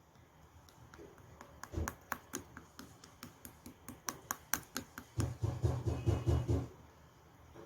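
Clay-mixed slime being handled by hand: scattered sharp clicks and pops, then a quick run of squishy pulses from about five seconds in until nearly seven seconds.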